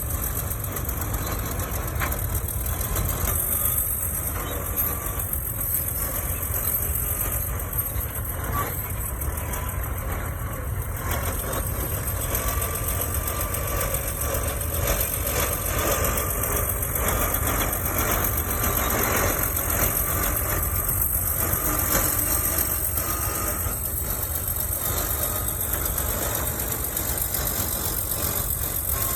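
Caterpillar D9 bulldozer's diesel engine running steadily under load, a deep continuous rumble with a faint whine that wavers in pitch above it.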